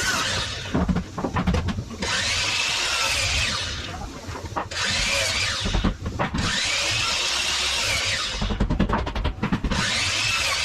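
Power saw cutting lumber in about five short runs, its motor whine rising and falling with each cut, with a run of quick clicks between cuts near the end.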